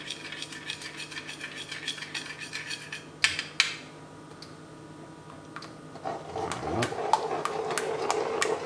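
A metal spoon stirred quickly inside a metal ladle, clinking rapidly as cornstarch slurry is dissolved in a little soup, with two sharper clinks about three seconds in. From about six seconds in, the ladle stirs the thickened soup in an enamelled cast-iron pot, a denser scraping swish.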